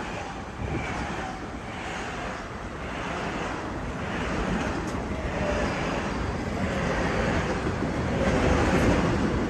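Long Island Rail Road train running past, a steady rushing rumble of wheels and air that slowly grows louder toward the end, with wind on the microphone.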